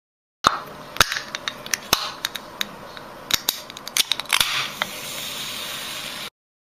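Aluminium soda can's pull tab clicked over and over by a fingertip, a quick run of sharp clicks. Then the tab cracks the can open and the carbonated drink hisses steadily for about two seconds before cutting off.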